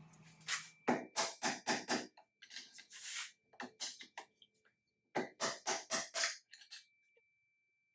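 Sharp knocks in three quick runs of about five or six strikes each, roughly four or five a second.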